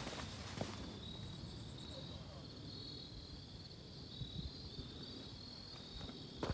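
Footsteps scuffing on bare rock, then from about a second in a steady, high, finely pulsing chorus of chirping insects.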